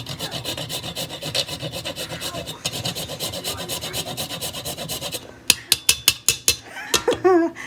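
Whole nutmeg being grated: quick, even rasping strokes, several a second, of the nut against a grater. After about five seconds the grating stops, and a run of sharp taps follows.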